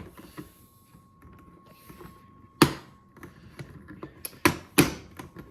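Hard plastic clicks and knocks as rotary spool holders are pushed onto a Bambu Lab AMS lite: one sharp knock about two and a half seconds in, then three quicker ones near the end.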